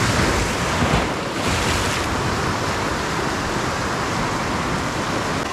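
Sea waves washing and breaking on a rocky shore, with wind on the microphone. A steady rush of surf that swells a little louder in the first couple of seconds.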